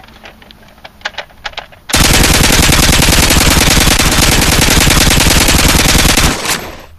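A few light clicks, then a sudden loud burst of rapid automatic machine-gun fire lasting about four and a half seconds. It stops abruptly with a brief echoing tail. The gunfire is a sound effect dubbed over a toy Nerf blaster.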